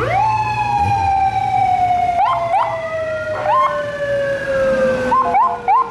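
Police car siren: it winds up sharply into a wail that slowly falls in pitch, with short upward whoops laid over it and a run of quick chirps near the end.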